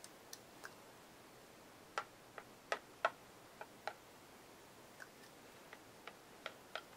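Irregular light clicks and taps, about a dozen scattered at uneven intervals, from small hand work with a painting tool at the table.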